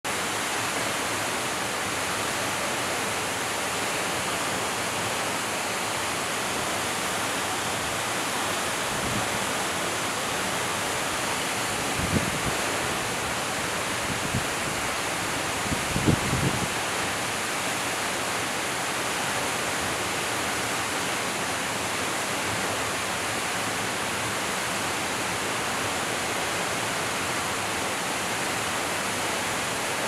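Waterfall pouring steadily into a rocky plunge pool, an unbroken rush of falling water. A few brief low thumps stand out near the middle.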